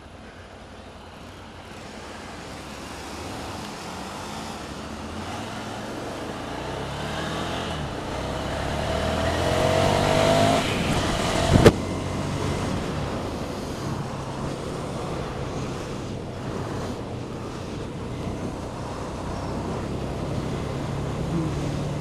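Motorcycle engines running and pulling away, the engine note climbing in pitch and growing louder over several seconds, then settling into a steady run. A single sharp knock about halfway through is the loudest moment.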